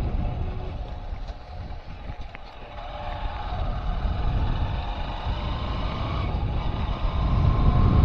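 A vehicle driving along a road, its engine running under heavy low wind rumble on the microphone. The rumble drops for a moment about two seconds in, then builds again as the engine note climbs near the end.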